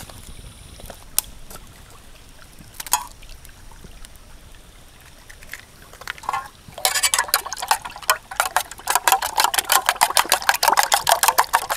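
Metal spoon beating raw eggs in a small metal camping pot: a fast, even run of clinks against the pot that starts about seven seconds in, after a few scattered faint knocks.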